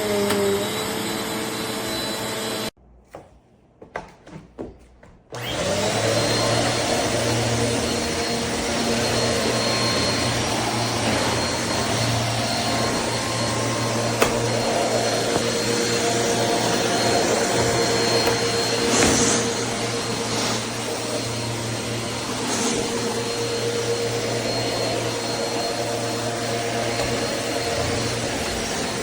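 Eureka NEU10AE5 bagless upright vacuum cleaner running steadily. Its motor noise cuts out for a couple of seconds about three seconds in, with a few faint knocks, then runs again at full power.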